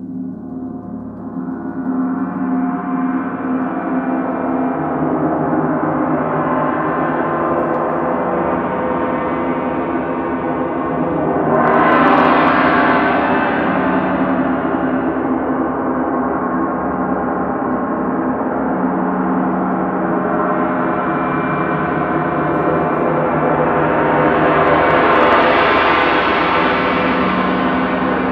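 Several gongs played on their edges with soft roller mallets, building into a continuous shimmering wash rich in frothy, white-noise-like highs. The sound swells brighter about twelve seconds in and again near the end as the next gongs are brought in.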